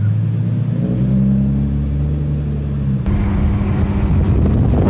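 Nissan 370Z's 3.7-litre V6 through a Greddy Revolution RS single-exit stainless steel catback exhaust as the car pulls away: a low, steady exhaust note that rises a little about a second in, then turns rougher about three seconds in.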